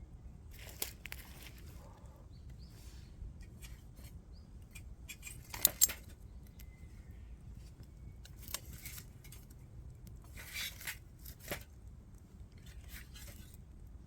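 Scattered clicks, clinks and rustles of small things being handled, with two sharp clicks close together about six seconds in.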